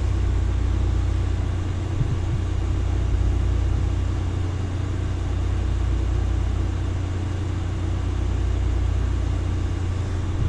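Steady low hum and whir from a running eMac computer, with no change through the stretch.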